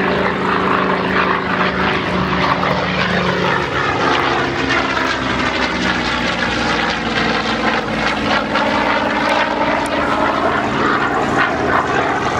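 Goodyear FG-1D Corsair's Pratt & Whitney R-2800 radial engine at take-off power as the fighter takes off. The engine tone drops in pitch as it passes, a few seconds in.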